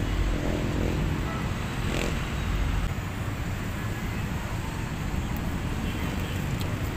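Steady low outdoor rumble, with one short sharp click about two seconds in.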